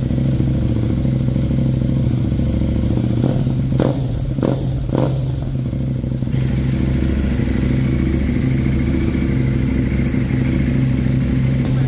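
KTM 690 Duke's single-cylinder 690 cc engine idling steadily, with a few brief knocks about three to five seconds in.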